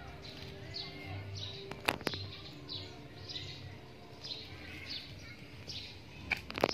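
A bird chirping over and over, a short falling chirp every half second or so, over a steady low hum. Sharp clicks come about two seconds in and again near the end.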